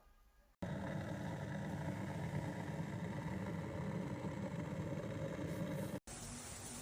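A steady rumbling noise with a low hum, starting abruptly about half a second in and cutting off suddenly near the end, followed by a quieter steady hiss.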